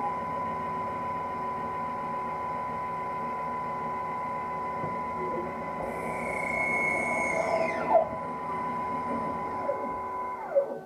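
Twin-spindle CNC lathe running as it turns a small part: a steady whine of the spindle and drives over machining noise. About eight seconds in, the whine falls in pitch with a sharp click, and it falls again and cuts out near the end as the spindle slows.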